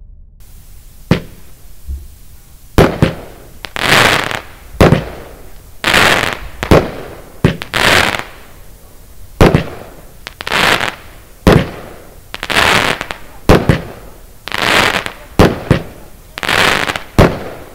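Lesli 'Angry Oryx' 25-shot fireworks cake (battery) firing in sequence, starting about a second in: sharp launch cracks about one a second, each followed by a longer noisy burst as the shell breaks overhead.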